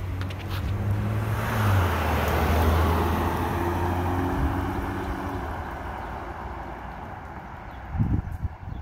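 A motor vehicle driving past: its engine hum drops in pitch a little under two seconds in, with road noise that is loudest around two to three seconds in and then slowly fades. A few low thumps come near the end.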